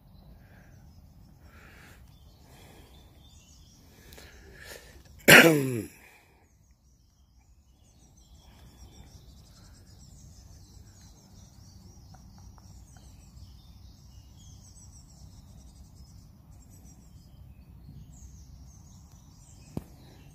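Faint birdsong over steady low outdoor background noise. About five seconds in comes one short, loud cry that falls in pitch, and near the end a single click.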